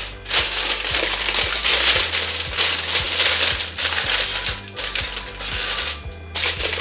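Aluminium foil crinkling and crackling in uneven bursts as it is pressed down over a cooking pot, with background music.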